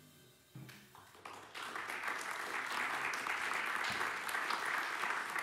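Audience applause breaking out about a second in after a short hush at the end of a jazz tune, building quickly and then holding steady.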